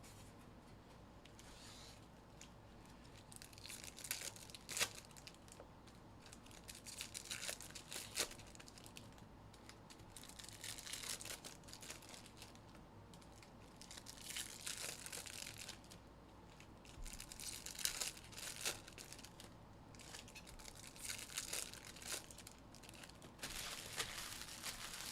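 Foil trading-card pack wrappers being torn open and crinkled by hand, in intermittent bursts of tearing with a few sharp clicks between them.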